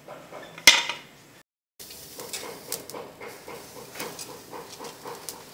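A sharp knock, then a brief dropout. After that, meat sizzles on a wire grill over glowing charcoal, with irregular crackling pops.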